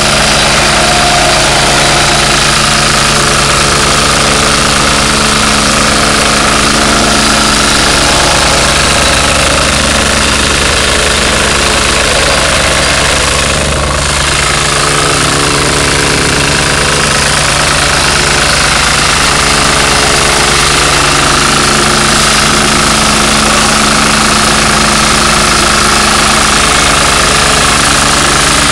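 Reversible plate compactor driven by a KAMA 178F single-cylinder air-cooled diesel engine, running loudly and steadily at working speed while its vibrating plate pounds across loose gravel with a continuous clatter. The sound dips briefly about halfway through.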